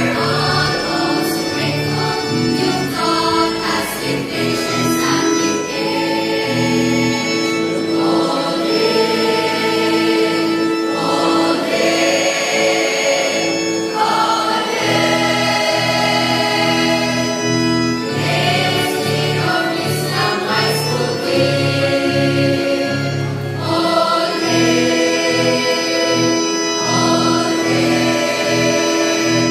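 Mixed choir of graduating students singing a song together, led by a conductor.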